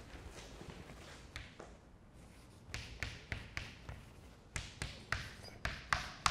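Chalk tapping and scraping on a blackboard as an equation is written: faint at first, then a string of short, irregular taps from a little under three seconds in.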